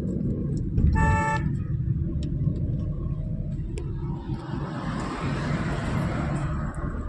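Steady engine and road rumble heard inside a moving car. About a second in, a vehicle horn gives one short honk, and a few seconds later a hissing rush swells and fades.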